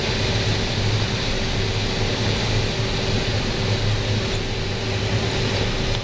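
Combine harvester running in a cornfield: a steady machine noise with a constant low hum and a held tone.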